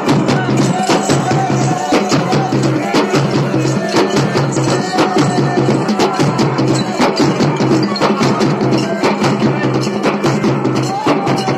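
Loud Garhwali wedding dance music: a fast, steady drum beat over held low tones, with a melody line coming and going.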